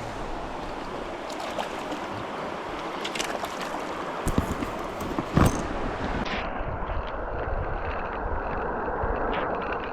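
River water rushing steadily, with wind on the microphone and a few sharp knocks and splashes between about three and five and a half seconds in. The sound turns duller a little past halfway.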